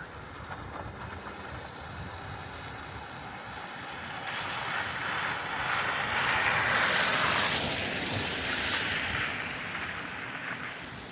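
A vehicle driving past on a slushy, wet road: the hiss of tyres through slush swells up, peaks a few seconds in, then fades away as it passes.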